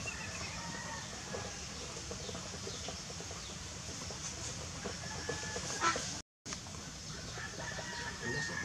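Chickens clucking, with other birds calling faintly over a steady background; a sharp click and a moment of dead silence about six seconds in.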